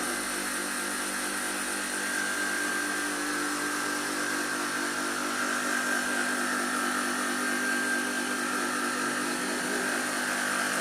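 Surface grinding machine running steadily, its motor and spinning grinding wheel giving an even mechanical hum with a high tone over it.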